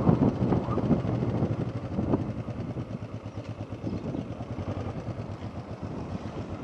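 Motorcycle engine running as the bike slows, louder for about the first two seconds, then running quieter with an even pulse.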